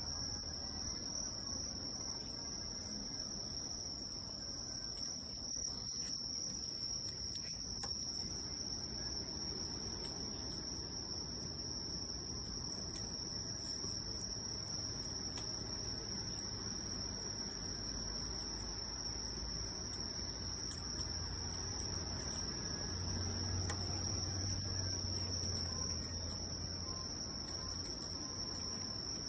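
Outdoor insects trilling steadily at one high, unchanging pitch, over the faint crackle and low rush of a campfire.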